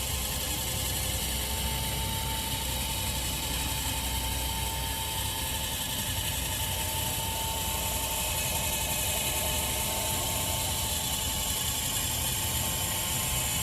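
Motorized spotlight's electric pan motor and gearing whirring steadily as the light rotates all the way around, with a steady whine over a low hum.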